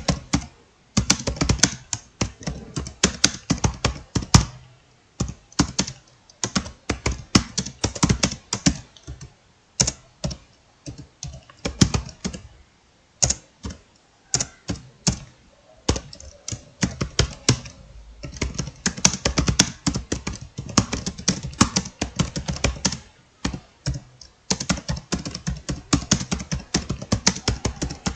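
Fast typing on a computer keyboard during a timed speed test: rapid runs of key clicks, each run lasting a second or two, broken by short pauses.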